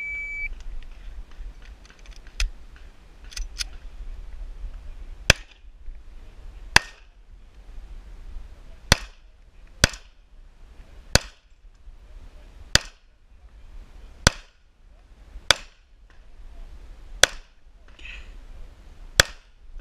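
An electronic shot timer's beep starts the string, followed by about ten semi-automatic pistol shots fired deliberately, one every second or two. A few fainter pops come in the first few seconds before the shooting starts.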